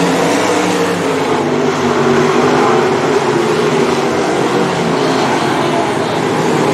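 305 sprint cars' V8 engines racing at speed, a loud steady drone from the cars on track.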